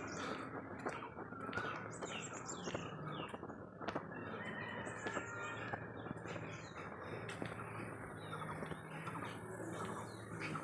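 Small birds chirping: a scatter of short, high calls over a low steady hum, with a faint high whine joining about seven seconds in.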